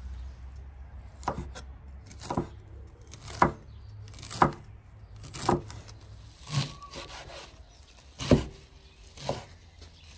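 A large kitchen knife chopping fresh stinging nettles on a wooden cutting board: about eight sharp strokes, roughly one a second, each knocking the blade through the leaves into the wood.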